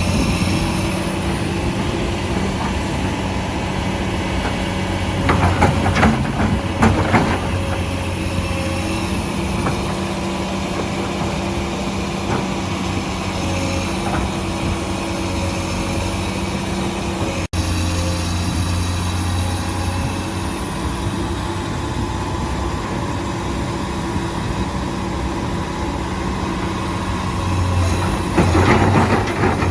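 Heavy construction machine's engine running steadily, with two spells of clattering knocks, about six seconds in and again near the end, and a brief drop-out about halfway through.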